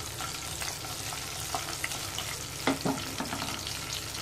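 Cumin, mustard seeds, dried red chillies and curry leaves sizzling with small crackles in a little hot oil over a low flame: a tadka (tempering) being lightly sautéed. A short knock sounds a little past halfway.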